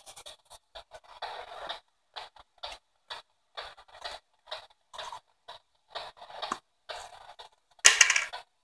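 P-SB7 spirit box sweeping through radio stations: choppy, clipped fragments of static and broadcast sound, a few a second, with short silences between them. There is a louder burst about eight seconds in.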